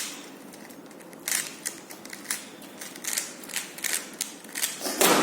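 Plastic Rubik's cube being turned fast by hand during a speed solve: quick, irregular clicks and rattles of the layers snapping round.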